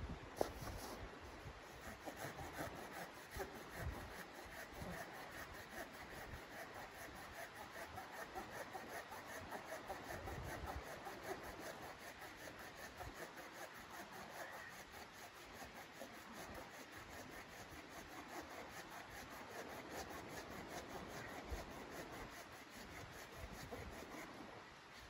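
Steady, rhythmic rasping scrape, kept up without a break, like strokes of something rough drawn across wood.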